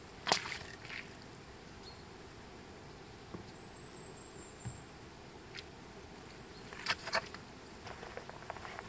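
Outdoor summer ambience with insects buzzing faintly over a steady hiss. One sharp knock comes just after the start and a few more come about seven seconds in.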